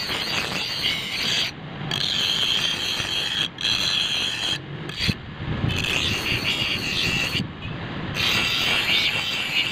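Bench grinder wheel grinding the steel blade of a small handmade knife, a steady harsh scraping hiss broken by several short breaks.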